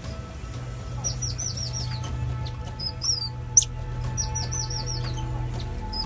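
High-pitched chirping calls: quick runs of four or five falling chirps about a second in and again around four seconds, a short two-note chirp near three seconds, and one sharp rising squeak just past halfway, the loudest sound. Underneath runs a low steady drone of background music.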